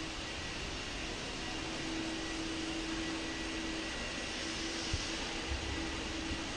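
Steady hiss of background noise in a large hall, with a faint hum underneath and two soft low thumps about five seconds in.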